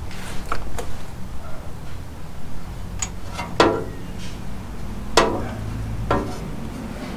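Steel wrench working a 19 mm bolt on a Unimog U1300L's oil filter housing: a few sharp metallic clinks, two louder ones about three and a half and five seconds in that ring briefly.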